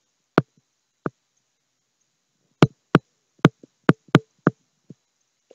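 Stylus tapping and clicking on a pen tablet while handwriting: about eight sharp, irregular taps, with a few fainter ones in between.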